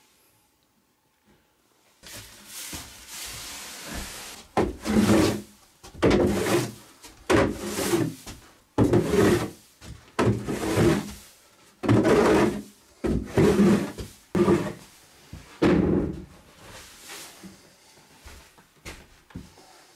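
Sawdust being worked over a wooden plank floor in a small log shed: a run of about ten loud scraping, thudding strokes, roughly one a second, starting a few seconds in and easing off near the end.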